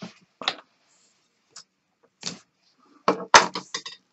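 Short, sudden scrapes of a knife trimming loose serving-twine ends off a served rope, the last step of repairing damaged serving. About three seconds in comes a louder cluster of rubbing and knocking as the hands grip and roll the served rope.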